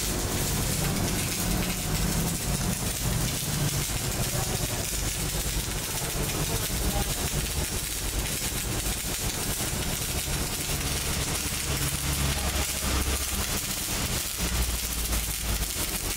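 CO2-shielded MIG (gas metal arc) welding arc running steadily with a continuous crackling sizzle.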